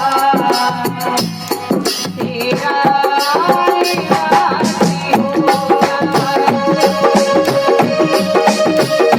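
Instrumental music: a held melody line over a steady beat of hand drums and rattling percussion.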